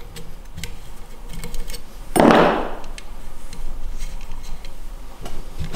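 Small metal handling sounds as an Allen wrench works the set screw on a billet aluminium anti-roll bar arm, with light clicks and a short scraping rush about two seconds in as the arm is handled on the bar.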